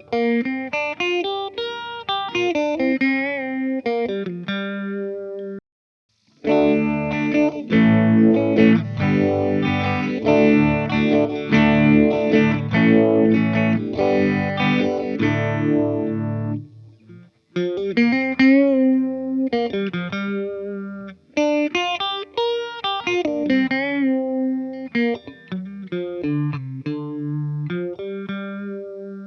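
Electric guitar, an Epiphone Les Paul Special, played through a Joyo Vintage Phase phaser pedal into a Fender Twin Reverb Tonemaster amp, recorded direct. It plays single-note phrases, stops briefly about six seconds in as the phaser's rate is turned up to its "2:00" setting, then strums chords for about ten seconds and goes back to single-note lines after a short break.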